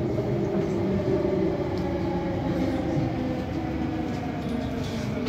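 Delhi Metro electric train running, a steady rumble with a faint motor hum that slowly falls in pitch.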